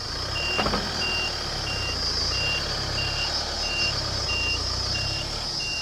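Truck's reversing alarm beeping steadily, about three beeps every two seconds, over its engine running as it backs in to tip a load of crusher dust.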